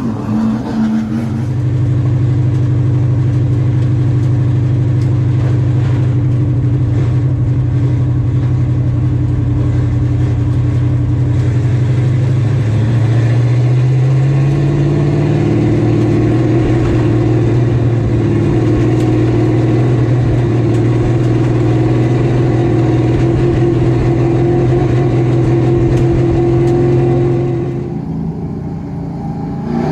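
A race car's GM 602 crate V8 running at a fairly steady speed, its pitch stepping up about halfway through and the sound falling away near the end.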